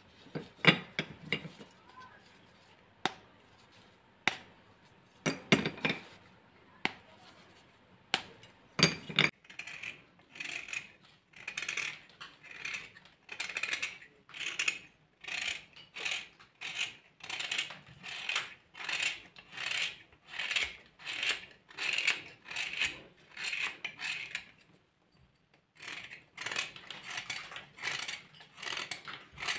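Dry clay cracking and crumbling: a few sharp snaps spaced over the first several seconds, then a steady run of gritty crunches, about three every two seconds, with a brief pause near the end.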